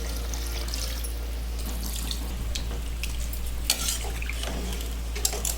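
Water being poured into a pressure cooker over the frying masala, splashing and sizzling, with two sharp clicks, one past the middle and one near the end, over a steady low hum.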